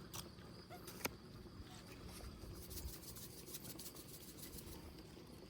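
Quiet outdoor background with one sharp click about a second in.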